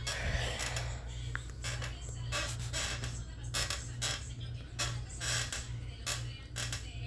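Irregular short scratchy clicks, a couple a second, over a steady low hum.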